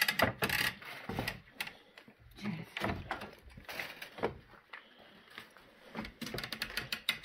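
Footsteps crunching and scraping over fire-damaged rubble and broken timber, with irregular knocks and cracks of debris underfoot. A quick run of sharp cracks comes near the end.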